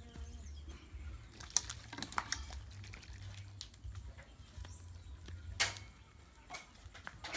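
Wood fire crackling under a wok: irregular sharp snaps, with a louder crack about five and a half seconds in, over a low steady rumble.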